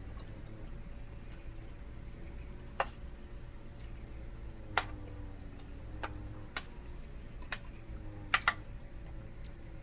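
A plastic spork clicking and tapping against the ration's food container: seven or so sharp, separate clicks spread over several seconds, two of them close together near the end, over a low steady hum.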